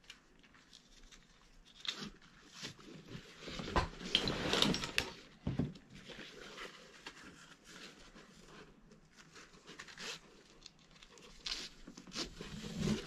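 Nylon webbing straps being threaded through a climbing harness's slots and buckle: irregular rustling and scraping with small clicks, busiest about four to five seconds in.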